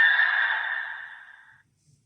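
Electronic sound effect from the Valvarad wrench-sword toy's small speaker: a noisy rush that fades out over about a second and a half, ending in silence.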